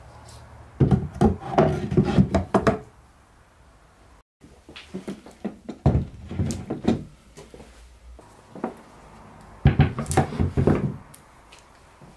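Wooden cabinet and its drawer being handled: wood scraping and knocking in three bursts of clatter.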